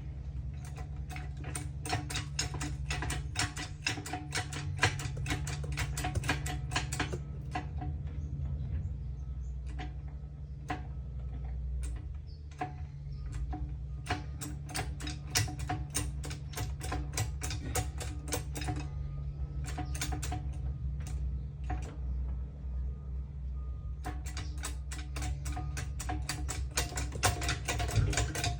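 A jack being worked up with a ratcheting mechanism, clicking rapidly and evenly at about five clicks a second in three long spells with short pauses between, over a steady low hum. It is pushing the rubber bump stop up over its mounting spigot.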